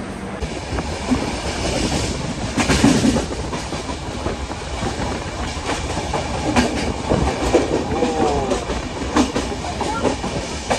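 Passenger train running, its wheels clattering over the rail joints with a steady rumble and irregular sharp clacks.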